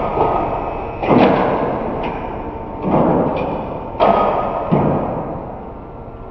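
Bonacin Pinta case clamp's pressing beams closing on a cabinet carcass: four sudden thuds, each trailing off over about a second.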